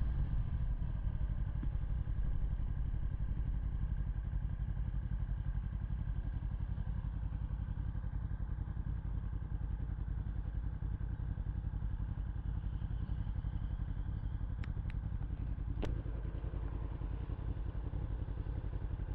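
Yamaha R1 inline-four motorcycle engine idling steadily while stopped at a traffic light, heard through a helmet-mounted lavalier mic. A few light clicks come about fifteen seconds in.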